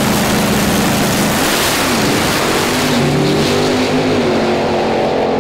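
Two drag-racing cars launching and accelerating hard down the strip, the engines loud, their pitch dipping and climbing a few times as they pull away.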